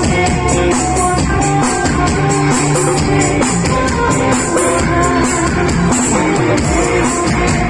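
Loud music with a steady beat, playing without a break.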